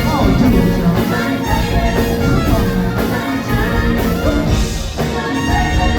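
Live band with a horn section playing an upbeat soul number, drums keeping a steady beat of about two strokes a second.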